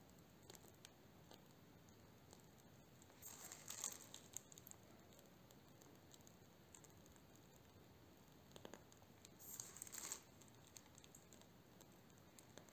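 Near silence, broken twice by brief, faint crinkling of a plastic piping bag squeezed in gloved hands, about three seconds in and again about nine seconds in.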